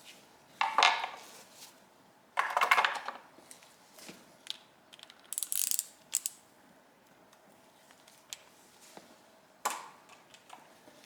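Small metal carburetor parts and hand tools clicking and rattling in two short, dense bursts, followed by a brief hiss and scattered single clicks, as the carburetor is taken apart.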